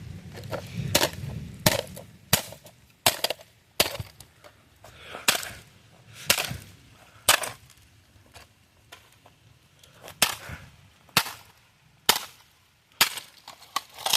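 A plastic digital alarm clock being smashed: about a dozen sharp, hard blows, roughly one a second, with a pause of a few seconds in the middle, as the casing breaks apart.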